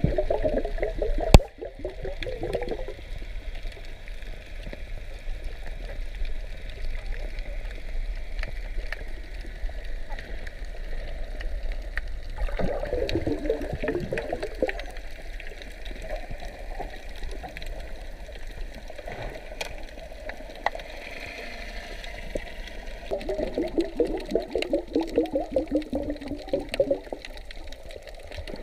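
Water gurgling and sloshing around an underwater camera, with three stretches of louder, fluttering gurgling and a sharp knock about a second in.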